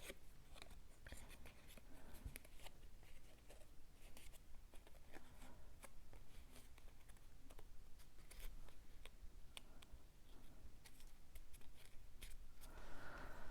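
Faint handling of paper cardstock pieces on a work surface: scattered light ticks, taps and rustles.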